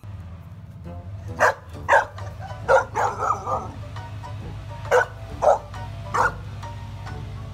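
Golden retriever puppy barking: about seven short, sharp puppy barks at uneven gaps, with a quick run of them about three seconds in.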